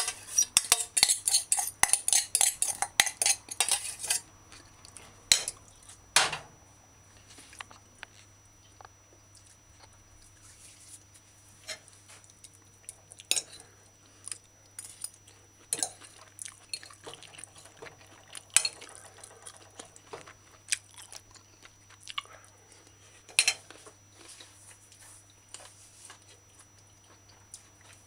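Metal fork clinking and scraping against a plate while eating, a quick run of clinks for the first four seconds or so, then occasional single clinks.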